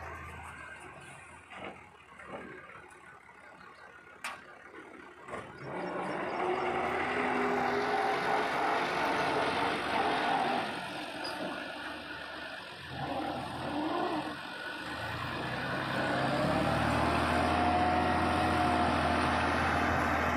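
Farm tractor engine running under load while the tractor works a rear blade through loose soil. It is fairly faint for the first few seconds, then louder from about six seconds in, with the engine pitch rising and falling as it is revved.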